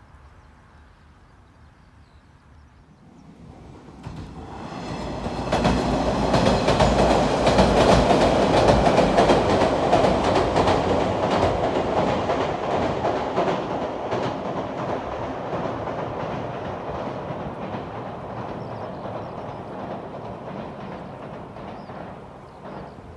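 A JR train passing by: it approaches over the first few seconds, is loudest with dense wheel clatter on the rails about a third of the way in, then slowly recedes. The sound cuts off abruptly near the end.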